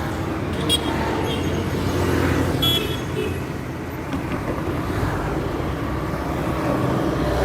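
Indian highway traffic: a steady rumble of passing vehicle engines and tyres, with two short horn toots in the first three seconds.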